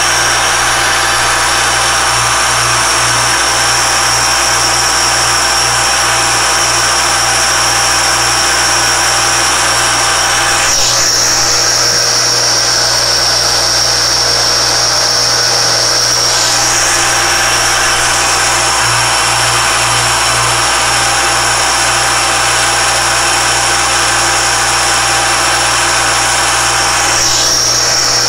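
Alexander Model 3A pantograph's belt-driven cutter spindle running with a steady high-pitched whine while the cutter engraves a brass dial blank. The whine shifts briefly about three times.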